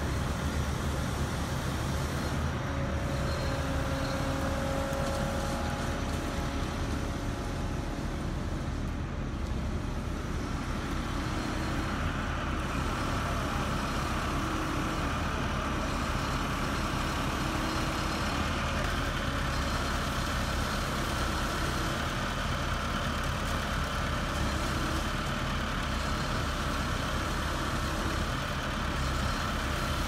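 Concrete pump truck's diesel engine running steadily while it pumps concrete through the hose, with the mixer truck alongside.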